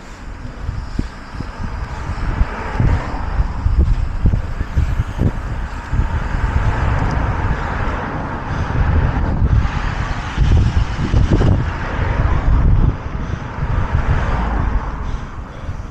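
Wind buffeting the microphone in a loud, uneven rumble, with a hiss that swells and fades every few seconds.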